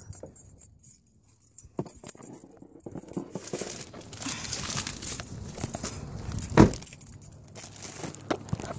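Handling noise from a handheld phone: rubbing, rustling and scattered clicks, with a single sharp knock about two-thirds of the way through.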